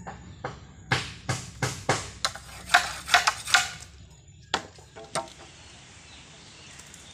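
Machete chopping at a long bamboo pole, trimming it: a quick run of about nine sharp strikes over three seconds, then two more single strikes spaced out.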